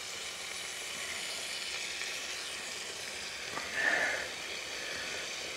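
Food cooking in a Trangia pot over its spirit burner, sizzling steadily at full heat. A brief ringing note sounds about four seconds in.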